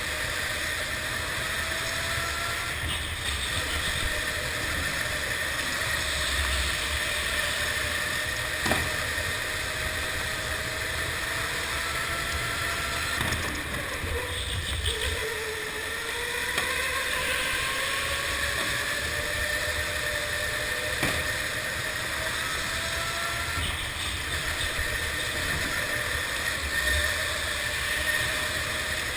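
Electric go-kart running at speed, heard from the kart itself: a motor whine that rises and falls in pitch as it speeds up and slows for the corners, over steady rushing noise, with a couple of short knocks.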